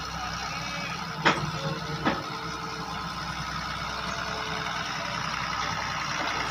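Hitachi 160 excavator's diesel engine running steadily, with two sharp knocks a little under a second apart, about a second in.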